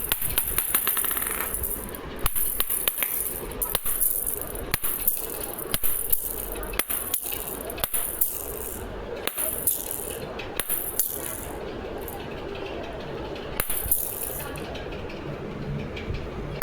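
Kitchen utensils clattering and clinking as they are handled and knocked together: irregular sharp clinks, dense at first and thinning out after about twelve seconds.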